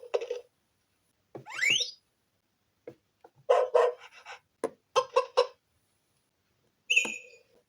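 Recorded animal sound effects from a LeapFrog 100 Words talking book's small speaker as pictures are touched: a quick rising glide, then a dog barking in several short barks, then a brief high-pitched chirp near the end.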